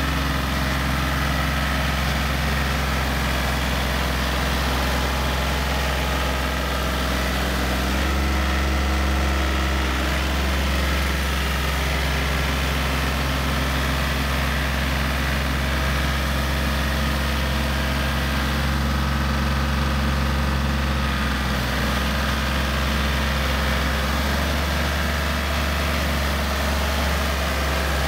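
Yanmar EF393T four-wheel tractor's diesel engine running steadily under load as it drives a rear rotary tiller through wet rice-paddy mud. The engine note shifts slightly about eight seconds in and again near the end.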